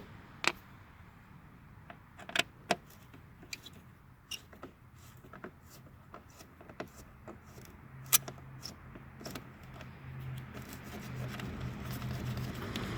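Sharp metallic clicks and light clinks, scattered and irregular, from small T15 Torx screws and the tool being handled as the tail-light screws are taken out. A low steady hum comes in about two-thirds of the way through and grows.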